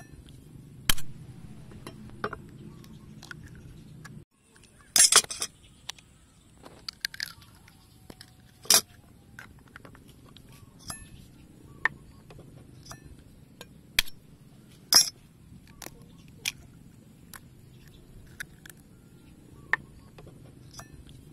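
Duck eggs being cracked and their shells pulled apart by hand: a scattered series of sharp cracks and clicks, the loudest about 5, 9 and 15 seconds in.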